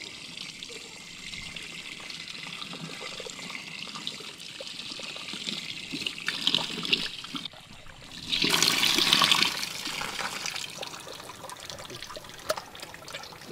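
Tap water running over a whole raw chicken into a stainless steel sink, trickling and splashing as hands rinse and turn the bird. The splashing grows louder for a second or two about eight seconds in.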